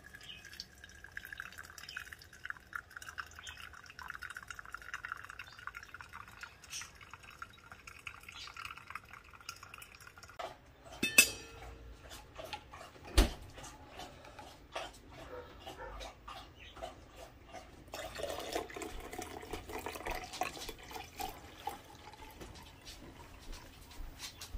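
Hot water poured in a thin stream onto coffee grounds in a mesh pour-over filter, its pitch falling slightly as it goes. About halfway through come two sharp knocks, and later brewed coffee is poured from the glass carafe into a stainless steel tumbler.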